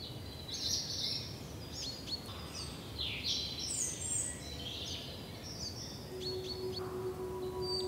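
Birds chirping and whistling, many short calls one after another, over a steady low background rumble. About six seconds in, a held musical note fades in underneath.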